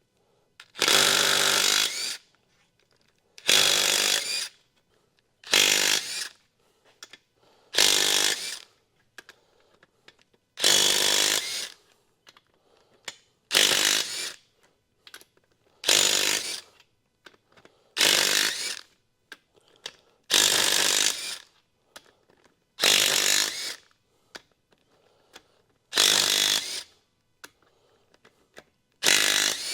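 A handheld power tool run in about a dozen short bursts, each under a second long and roughly two seconds apart.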